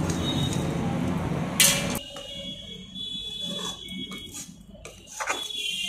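A steady rushing noise with one sharp clink about a second and a half in, then a sudden drop to a quieter track: a steady high-pitched tone with light scrapes of a spatula in a steel kadhai of hot jaggery syrup.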